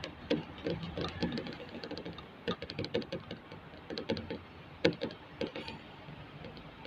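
Irregular light clicks and knocks, a few a second and one sharper knock about five seconds in, typical of tools and parts being handled during hands-on repair work.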